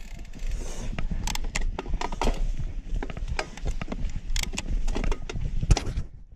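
Yeti SB5 mountain bike rolling fast over a rough dirt track: tyres crunching on dirt and loose stones, with chain and bike parts rattling in quick, irregular clicks. Wind rumbles on the camera microphone underneath.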